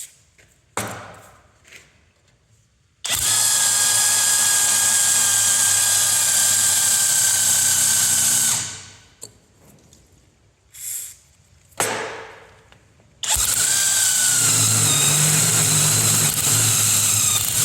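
HMT cordless impact wrench driving a cutting bit into 10 mm steel plate. It runs in two long stretches of about five seconds each, with a steady whine, and a few sharp clicks and knocks come in the pause between them.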